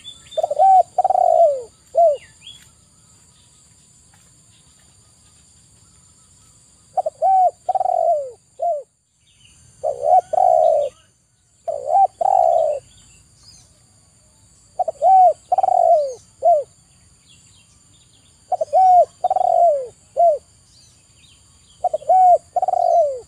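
Spotted dove cooing: about seven short phrases of three or four coos each, every few seconds, with a long pause after the first phrase.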